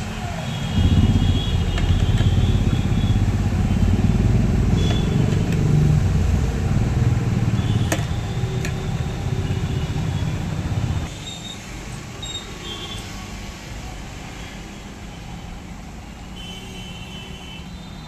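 A motor vehicle engine running with a low rumble, cutting off suddenly about eleven seconds in and leaving quieter background noise.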